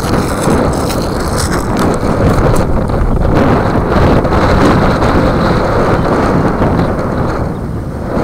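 Wind buffeting the microphone: a loud, steady rushing rumble with no calls or voices standing out.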